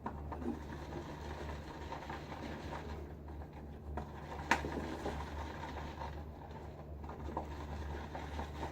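Shaving brush churning soap lather in a bowl, a soft, irregular wet crackling over a steady low hum, with one sharp click about four and a half seconds in.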